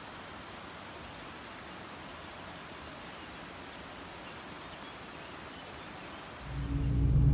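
Steady outdoor hiss with a few faint high chirps, then, near the end, a car's engine and road noise from inside the moving car cut in suddenly and much louder, a low steady hum.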